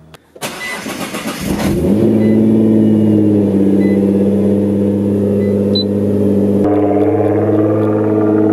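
Nissan GT-R R35's twin-turbo V6, breathing through a full HKS exhaust, starting up: a rough crank for about a second, then it catches, flares and settles into a steady idle.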